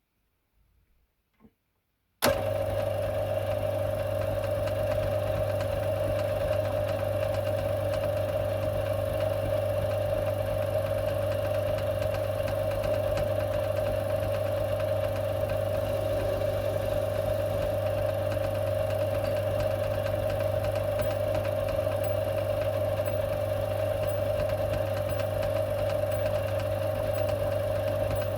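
Metal-turning lathe switched on about two seconds in, then running at a constant speed with a steady low hum and a mid-pitched whine.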